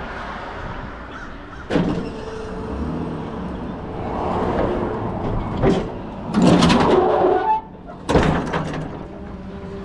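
A delivery truck's steel rear liftgate and its chains being let down. Sharp metal clanks come about two and six seconds in, then a longer rattling scrape, and a last clank about eight seconds in.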